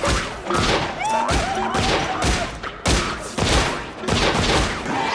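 A sustained volley of film gunshots, roughly two or three shots a second, stopping abruptly at the end.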